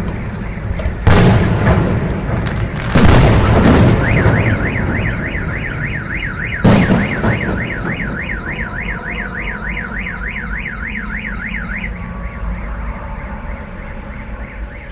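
Fireworks going off in loud booms, four in the first seven seconds, each trailing off in an echo. From about four seconds in, a car alarm wails with a fast up-and-down warble, about three rises a second, and stops about twelve seconds in.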